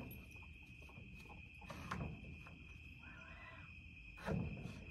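Crickets trilling steadily in the night, with two soft knocks of wooden boards being handled, about two seconds in and again near the end.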